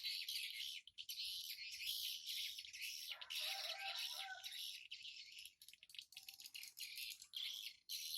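Swiftlets twittering: a dense, continuous stream of rapid high-pitched chirps, with a fuller burst of calls a few seconds in.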